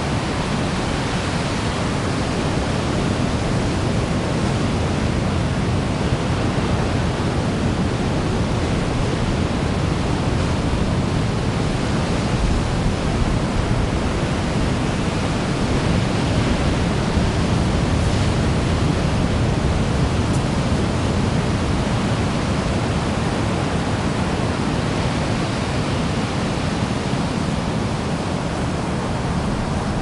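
Ocean surf breaking on a beach: a steady, unbroken wash of waves with a heavy low rumble, no single crash standing out.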